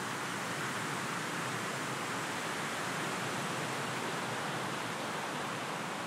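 A steady, even hiss with no distinct sounds standing out.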